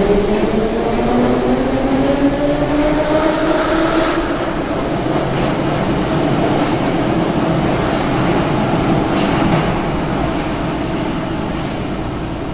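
Moscow Metro train pulling out of the station. The whine of its traction motors rises steadily in pitch as it accelerates through the first few seconds, over the rumble of wheels on rails. The noise then slowly fades as the train goes into the tunnel.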